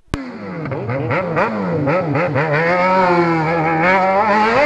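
Yamaha XJ6's 600 cc inline-four engine running through a loud aftermarket exhaust while riding. The revs fall, rise and fall through the middle, then climb steadily near the end.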